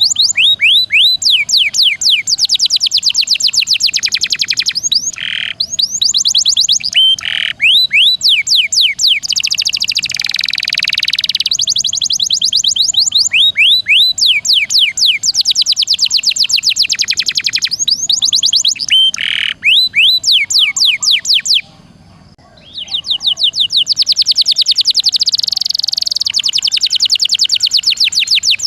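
Domestic canary singing long, fast rolling trills of rapid repeated high notes, broken by short pauses, with one pause of about a second a little after the middle.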